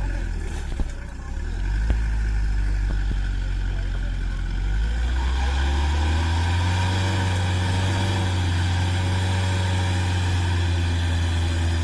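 A motor vehicle's engine running steadily, then rising in pitch about five seconds in and holding at the higher speed, with a brief knock or two early on.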